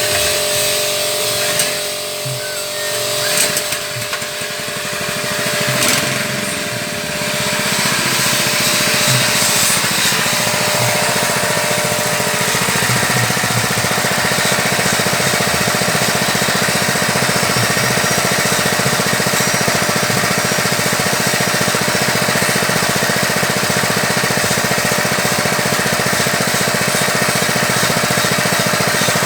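Floating fish-feed pellet extruder machine running with a loud, steady mechanical hum and hiss. A few knocks and level swings in the first several seconds, then it runs evenly.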